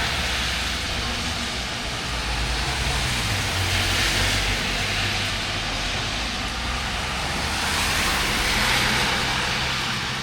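Road traffic passing: tyre and engine noise rises and falls as vehicles go by, swelling about four seconds in and again near the end, over a low engine hum.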